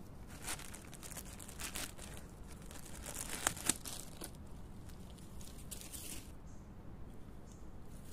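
A coyote nosing and pulling at a clear plastic bag: the thin plastic crinkles and rustles in irregular bursts, with two sharp snaps close together near the middle.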